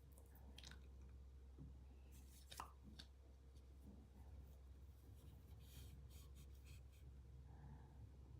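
Near silence with a steady low hum, broken by a few faint clicks and rustles of the power bank and its packaging being handled.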